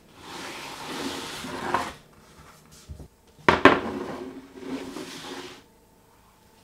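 Metal baking tray scraping as it slides across a wooden surface, with a knock near the end of the first slide. About three and a half seconds in comes a sharp metallic clank, the loudest sound, followed by more sliding.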